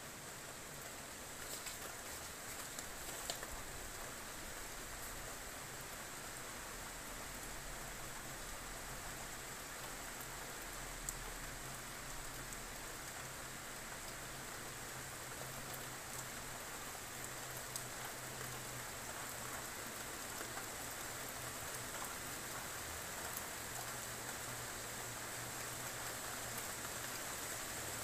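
Steady rain falling on a roof, with a few scattered drop ticks and a faint low hum underneath.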